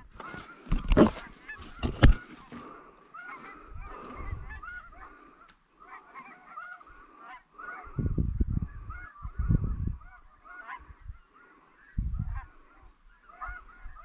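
A flock of snow geese calling: many short, high honks overlapping again and again. Two sharp knocks about a second apart near the start and bursts of low rumble about eight and twelve seconds in are louder than the calls.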